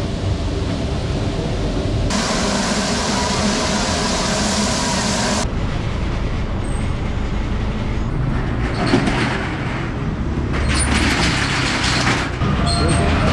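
Street ambience with vehicle engines running and traffic noise, changing abruptly several times. A bright, steady hiss sets in about two seconds in and stops about three seconds later.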